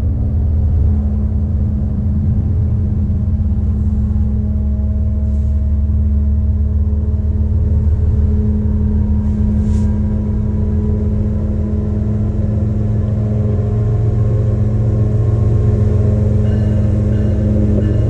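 Union Pacific diesel locomotive engines running with a steady low drone as the train approaches along the track, growing a little louder near the end.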